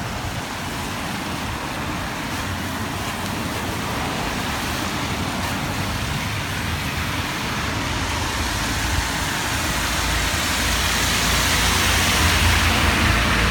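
A road vehicle driving past, its noise building slowly and loudest shortly before the end.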